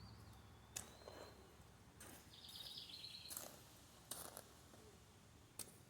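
Faint bird calls: a thin whistle sliding down in pitch right at the start and a short buzzy trill about halfway through, with a few soft clicks.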